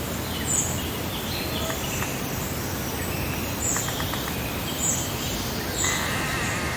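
Outdoor summer ambience: small birds chirping, short high calls repeating about once a second, over a steady background hiss of breeze.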